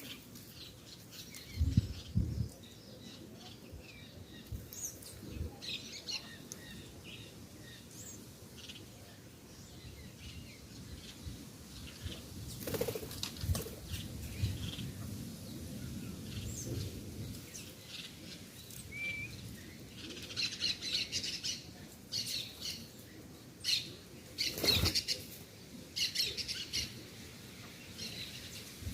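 Birds at a feeding spot: wings flapping as they come and go, with short high chirps that grow busier in the last third.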